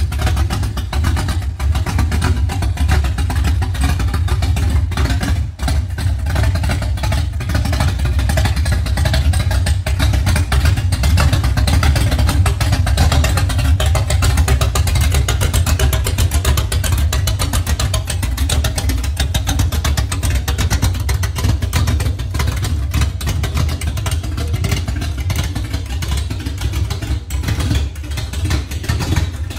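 A lifted late-1970s Ford pickup's engine running loud through its exhaust, a deep, steady sound with fast pulsing throughout.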